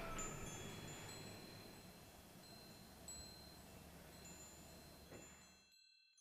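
Faint, high, scattered chime tones over a low hiss, slowly fading and dying away to silence near the end.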